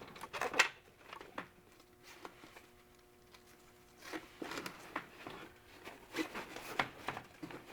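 Handling noises of a folding-kayak seat being fitted: a few sharp clicks and knocks in the first second, then a quiet pause, then rustling and rubbing of fabric and straps from about halfway.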